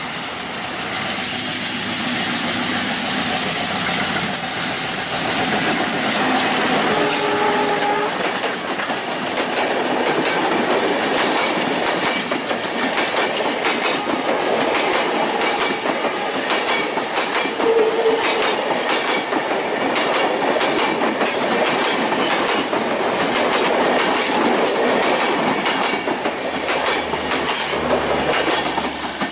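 A Bangladesh Railway WDM-3A diesel locomotive and its intercity passenger coaches passing at close range: the engine and running noise swell about a second in, then a long stretch of rhythmic clickety-clack as the coach wheels cross the rail joints, fading suddenly at the very end.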